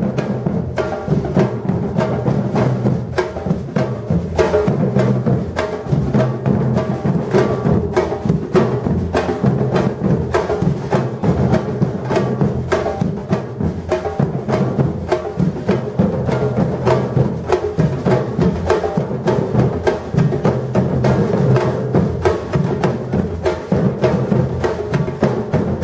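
Batucada drum ensemble playing a steady, driving rhythm without a break: deep bass drums under dense, rapid strokes of higher drums.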